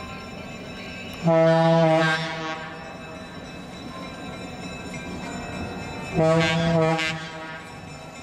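Diesel locomotive air horn sounding two blasts about five seconds apart, each about a second long, with steady train noise between them.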